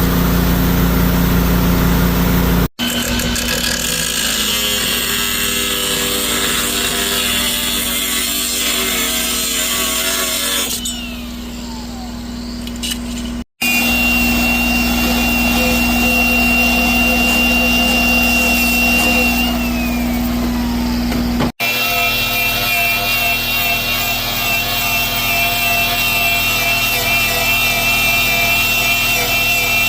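Mustang skid steer's rebuilt diesel engine running steadily, with a steady high whine over it. The sound breaks off abruptly three times where clips are joined.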